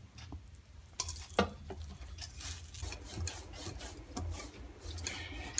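Hands kneading a grated bottle gourd and wheat flour dough in a metal bowl: soft rubbing and scraping, with a few sharp clicks in the first three seconds.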